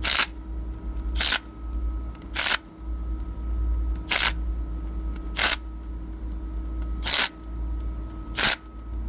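Ratchet wrench clicking in short strokes, roughly one every second and a half, while tightening the bolts of a chiller's oil filter housing. A steady low machinery hum runs underneath.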